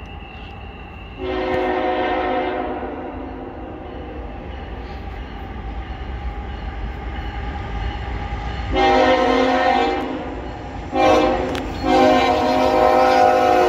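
Air horn of the lead GE locomotive of a CSX freight train, sounding the grade-crossing signal as it approaches: long, long, short, long. Under the horn, the low rumble of the approaching train grows.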